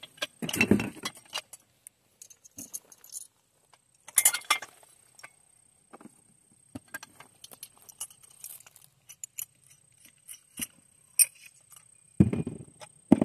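Light metallic clinks and rattles of EG4 BrightMount aluminium rack parts and bolt hardware being handled, with a denser clatter about four seconds in and a dull thump near the end.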